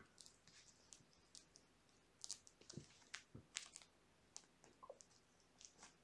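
Faint, scattered rustles, scratches and soft clicks of kittens wrestling on a fabric blanket and clawing at a plush toy, with a couple of soft low knocks near the middle.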